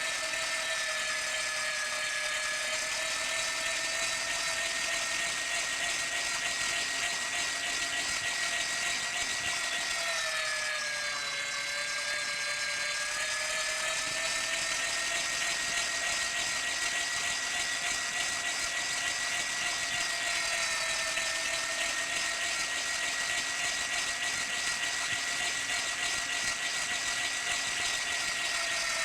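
Electric meat grinder motor running with a steady high whine; its pitch sags for a few seconds about ten seconds in, then comes back up.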